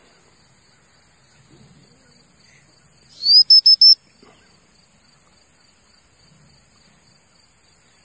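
A handler's whistle blown loudly once, about three seconds in: a short rising note that breaks into four quick equal toots. Faint, steady insect chirping of a few pulses a second runs behind it.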